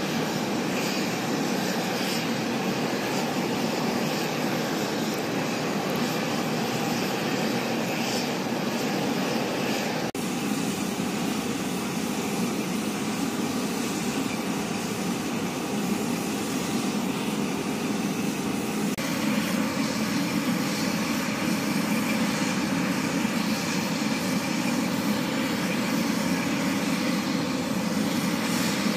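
Steady rushing and whining of aircraft engines running, with no break. The sound changes suddenly about ten seconds in and again about nineteen seconds in, and after the second change a steady mid-pitched tone stands out.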